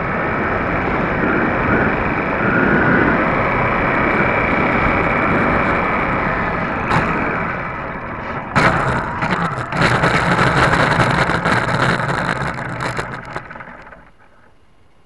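Electric motor and propeller of an RC Super Cub running, with wind rushing over an underwing camera. About eight and a half seconds in, a sudden loud rough clattering and scraping as the plane hits the ground and skids, dying away about five seconds later as it comes to rest.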